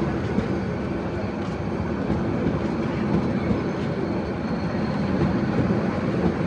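Bangladesh Railway intercity passenger coaches rolling past at speed: a steady rumble of steel wheels on the rails, with small knocks scattered through it.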